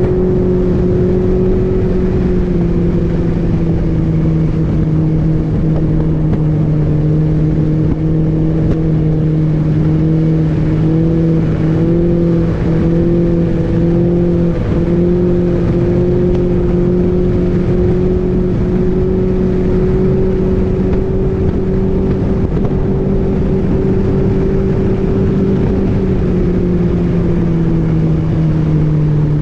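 A Mercury 115 Pro XS four-stroke outboard runs steadily under way at speed, pushing a small boat across the water. Its pitch wavers briefly about halfway through and drops near the end.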